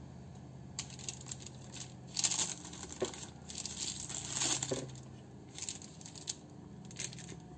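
A metal palette knife spreading meringue across a parchment-lined metal baking tray: a few soft scraping swishes with light clinks of metal against the tray, over a low steady hum.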